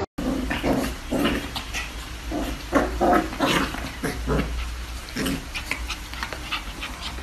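Two puppies play-fighting, making a quick run of short yips and noises, several a second, that thin out over the last second or two.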